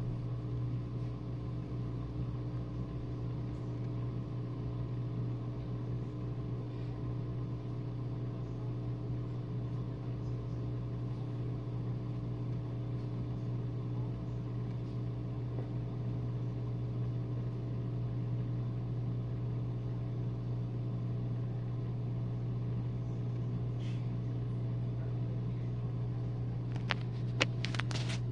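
A Whirlpool dishwasher's pump motor hums steadily while draining the main wash water. A few light clicks come near the end.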